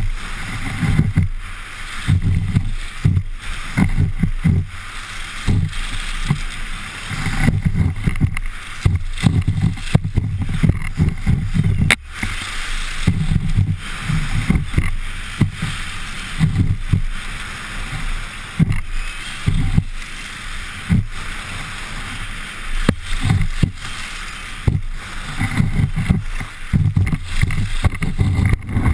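Ski sliding and carving on groomed snow: a steady hiss that swells and eases every second or two, with irregular low wind buffeting on the action camera's microphone.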